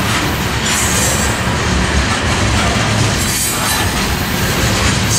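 Tank cars of a crude oil freight train rolling steadily past close by: continuous noise of steel wheels running on the rails.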